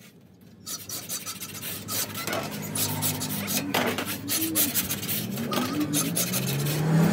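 A metal sheet being scraped by hand, an uneven rasping scrape that starts about half a second in. A low voice sounds in the background from about two seconds in, growing louder near the end.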